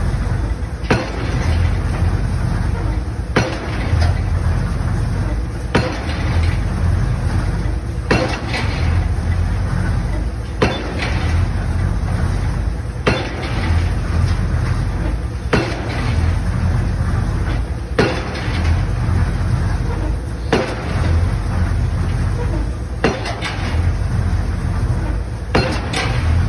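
Pile-driving rig's hammer striking a precast concrete pile, a sharp blow about every two and a half seconds, over the steady hum of the rig's engine.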